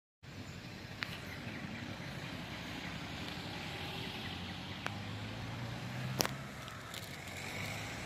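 City park ambience: a steady low rumble under a faint hiss, with three short sharp clicks, the loudest about six seconds in.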